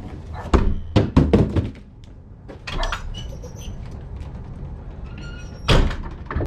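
Indoor handling noises: a quick cluster of knocks and clunks, then quieter rustling, and one louder knock near the end, like a door or a box being handled.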